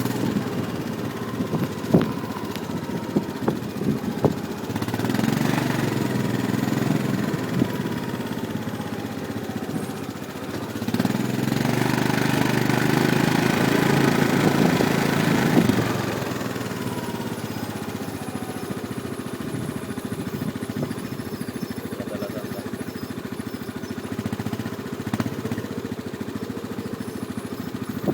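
ATV engines running. They grow louder twice, around five to eight seconds in and again from about eleven to sixteen seconds, with the pitch falling as each swell dies away, then run steadily and more quietly. A few sharp knocks come in the first few seconds.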